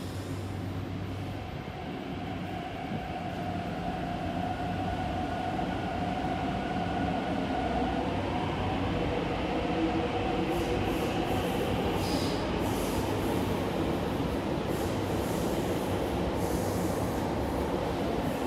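MTR TML C-train electric multiple unit pulling out along the platform, its traction motors whining and rising a little in pitch as it speeds up and grows louder. In the second half come repeated clicks of the wheels over the track and a brief high wheel squeal.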